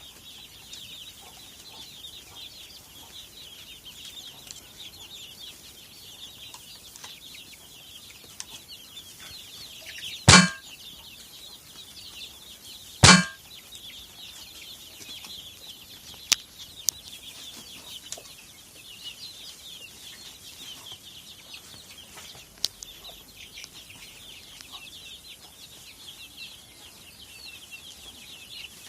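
Chickens clucking over a steady high chatter, with two loud short bursts about 10 and 13 seconds in and a few faint clicks later.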